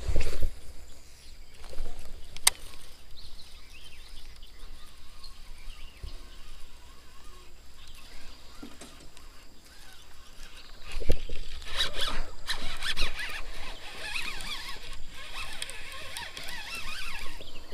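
Baitcasting reel whirring and chattering as line is cast and cranked back in, busiest over the last third, with a sharp click a couple of seconds in and a few low thumps of handling on the camera mic.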